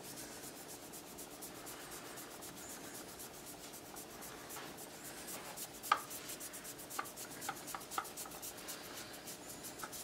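Small cloth towel rubbing the base of a CPU heatsink, wiping off old hardened thermal paste: a faint, steady scrubbing. A few light clicks come from about six seconds in.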